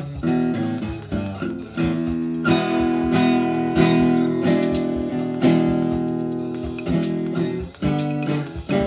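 Guitar music: quick picked notes, with chords held ringing for several seconds in the middle, then quick plucked notes again near the end.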